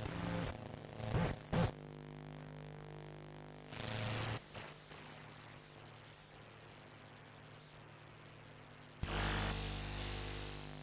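Electromagnetic noise from a 1984 Apple //c computer, picked up by a homemade stereo induction-coil pickup held against its case. A steady buzzing hum of several stacked tones runs throughout, broken by sudden bursts of crackling static about a second in, again around four seconds, and a loud one near nine seconds.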